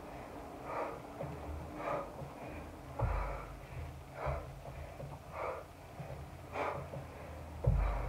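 A woman breathing hard during a kettlebell workout, with short sharp breaths out about once a second. Two dull thumps, about three seconds in and near the end.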